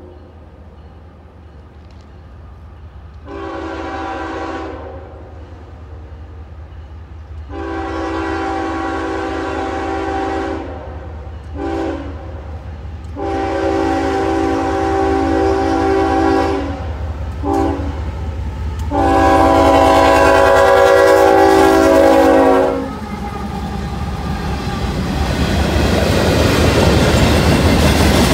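Diesel freight locomotive's multi-tone air horn blowing a series of blasts as it approaches, mostly long with two short ones between, each louder than the last; the final long blast is the loudest and ends about 23 seconds in. Then the locomotive passes close by, its engine rumble and the wheel and rail-joint clatter of the freight cars rising steadily.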